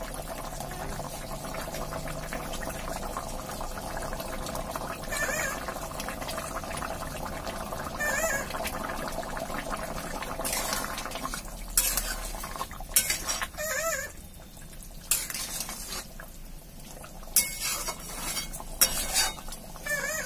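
Curry gravy bubbling at a boil in a metal kadai, then a spatula clinking and scraping against the pan as fried boiled eggs go in, with several sharp clinks in the second half.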